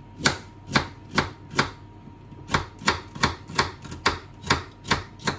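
A kitchen knife slicing carrots on a chopping board, about a dozen sharp strikes at a steady two to three a second, with a short pause a little before halfway.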